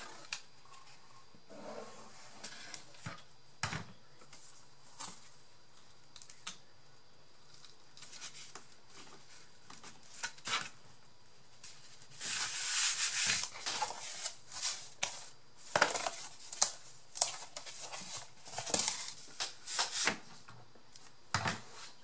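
Cardboard sheets being handled and pressed together on a table: scattered taps and light scrapes, with a longer rustling scrape about twelve seconds in.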